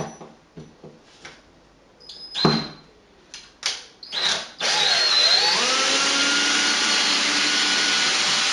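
A few knocks of handling, then from about halfway in a power drill/driver runs steadily, its motor whine sliding upward, as screws are being taken out of the packaging.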